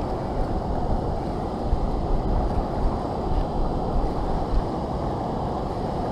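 Fast, high river current rushing steadily over a rocky riffle, with uneven gusts of wind rumbling on the microphone.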